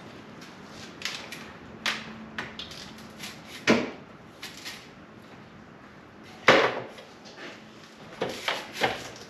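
Tools and parts knocking and clanking as they are handled during work on the car: a run of light knocks and clicks, with two louder bangs about three and a half and six and a half seconds in and a quick cluster of knocks near the end.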